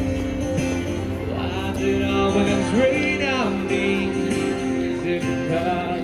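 Music with singing over sustained held chords.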